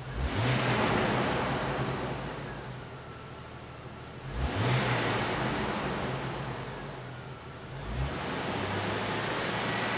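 The warm 4.0-litre inline-six of a 1999 Jeep Wrangler idling while the throttle is blipped three times: near the start, about halfway through, and a smaller one near the end. Each time the revs rise quickly and then sink slowly back to idle.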